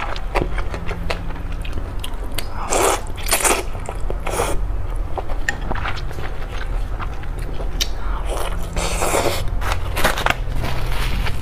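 A person eating close to a clip-on microphone: wet chewing and small mouth clicks, with several louder slurping and biting sounds, from noodle soup and braised fat pork.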